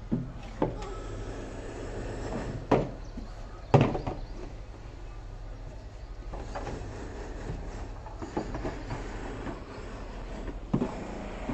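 Hollow plastic parts of a ride-on toy knocking and scraping as they are handled and fitted together, with a few sharp clunks in the first four seconds and another near the end.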